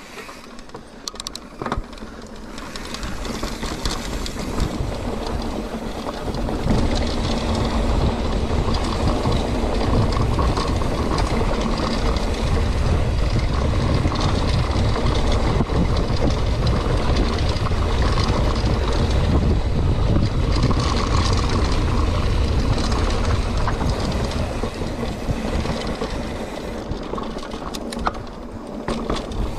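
Mountain bike riding a dry dirt and rock trail: a steady noise of tyres rolling over the ground and wind rushing over the camera's microphone. It swells over the first several seconds as the bike picks up speed and eases off near the end.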